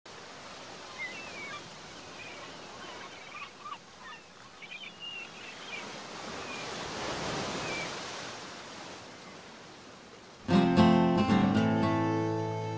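Sea surf washing on a beach, swelling and fading, with faint high chirps over it. About ten seconds in, music comes in loud: sustained string chords with plucked guitar.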